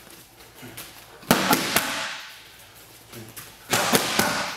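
Boxing gloves smacking focus mitts in two quick punch combinations. The first comes about a second in and the second near the end, each a run of sharp pops followed by a fading hiss.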